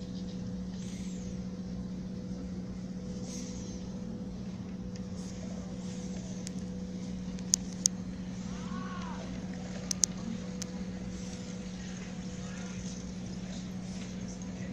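A steady low machine hum holding one pitch throughout, with two pairs of sharp clicks around the middle.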